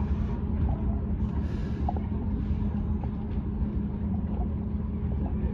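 New York City subway train standing at the terminal platform, giving a steady low hum, with a brief hiss about a second and a half in.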